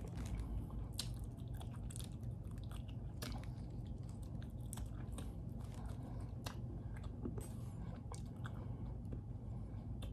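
A person chewing and biting into meat close to the microphone, with irregular small clicks and smacks over a steady low hum.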